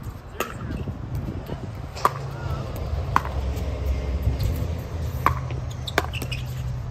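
Pickleball rally: a hard plastic ball struck back and forth with paddles, giving five sharp, slightly ringing pops one to two seconds apart, over a steady low hum.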